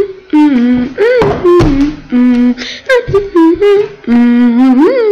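A young girl's voice singing a tune without clear words, in short held notes with swoops up and down in pitch, close and loud.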